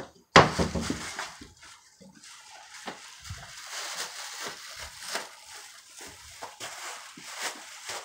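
Thin plastic shopping bags crinkling and rustling as a toddler grabs and stuffs them. The loudest rustle comes just after the start, then irregular crinkling continues throughout.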